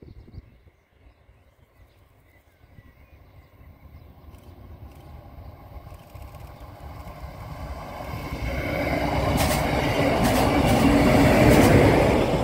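Red diesel railcar approaching and passing close by: the rumble of its engine and wheels on the rails grows from faint to loud. Near the end there are a few sharp clicks as the wheels cross the rail joints.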